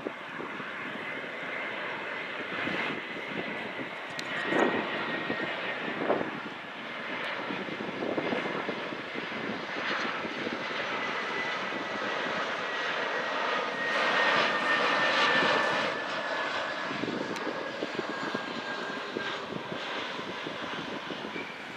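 Airliner engine noise as an aircraft flies past the airport, a steady rush with a high whine that slowly falls in pitch, loudest about two-thirds of the way through.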